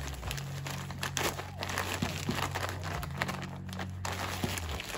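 Plastic bag of light brown sugar crinkling in irregular rustles as hands squeeze it, pressing a measuring cup into the sugar inside to pack it.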